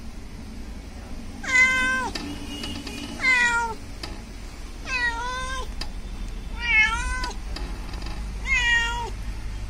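A cat meowing five times at an even pace, about one short high-pitched call every two seconds, each call dipping in pitch at its end.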